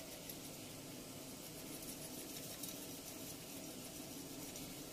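Quiet room tone: a faint steady hiss with a low hum, and no distinct sound.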